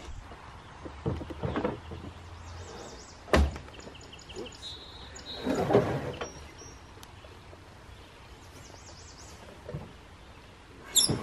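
Heavy sawn timber beams being shifted on a wooden trailer deck: wood knocking on wood, with a sharp thunk about three seconds in and a longer scraping slide of a beam around six seconds in.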